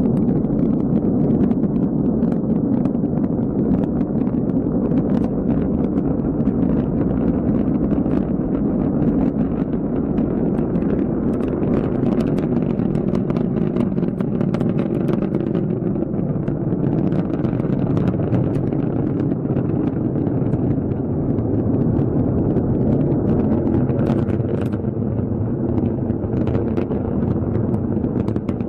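Rocket engine roar during flight: a loud, steady low rumble with a crackle running through it.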